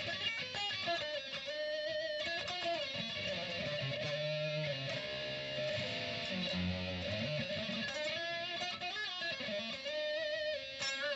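Distorted electric guitar played through a STRICH analog flanger pedal in its freeze mode: a fixed, filter-like tone that thins the lows and brings out the highs, almost like a cocked wah. Held notes and chords ring with wavering overtones.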